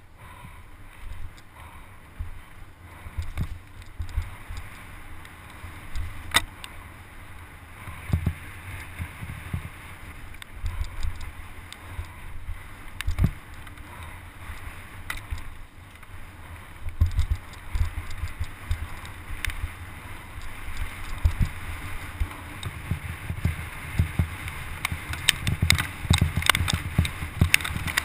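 Wind buffeting the microphone of a helmet-mounted camera on a fast mountain-bike descent, mixed with the tyres rumbling over a wet dirt trail and frequent knocks and rattles from the bike over rough ground. The knocking gets busier in the last few seconds.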